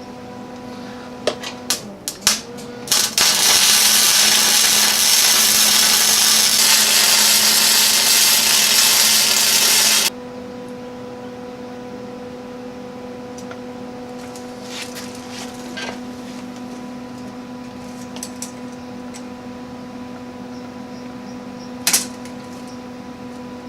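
Electric arc welding on a steel frame: a few brief crackling arc strikes, then a steady hissing, crackling weld run of about seven seconds that cuts off abruptly. A steady electrical hum follows, with a few light clicks and one sharp click near the end.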